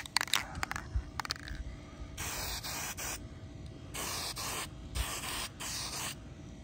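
Aerosol can of VHT Nite-Shades translucent black lens paint spraying in four short hissing bursts, the first and longest about two seconds in, after a few light clicks.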